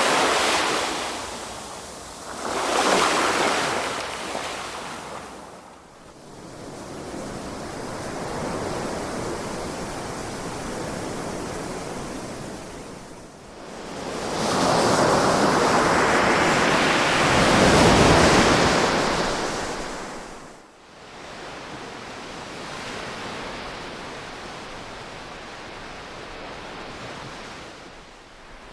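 Ocean waves washing on a shore in slow surges: two short swells at the start, then a longer, louder one in the second half that drops away suddenly, with a steady hiss of surf between.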